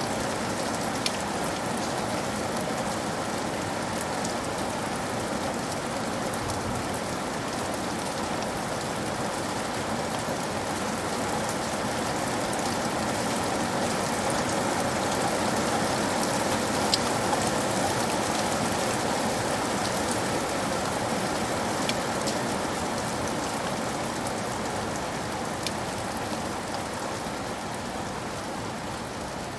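Steady rain falling, an even hiss with a scattering of sharp drop ticks now and then.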